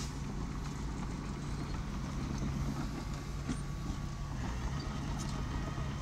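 Small bulldozer's diesel engine running steadily, with a few short knocks from the working machinery about three and a half and five seconds in.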